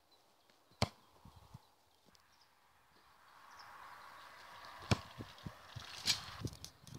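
A soccer ball kicked on grass, a single sharp thump about five seconds in, amid soft running footsteps. Another sharp knock follows about a second later, and a lighter one comes just under a second in.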